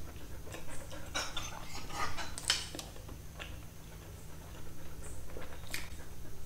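Close-miked chewing of a chicken burger, with wet lip smacks and mouth clicks that come thickest about one to three seconds in and a fresh bite into the soft bun near the end. A low steady hum runs underneath.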